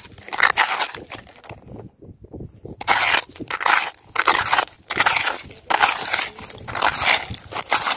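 A hand scraping and digging through coarse, gritty coral sand close to the microphone: repeated crunchy strokes, about two or three a second, with a short pause about two seconds in.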